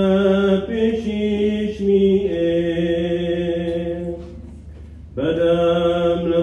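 A priest's solo male voice chanting the Gospel reading in liturgical cantillation, holding long notes that step between pitches. The voice falls away for about a second near the middle, then resumes.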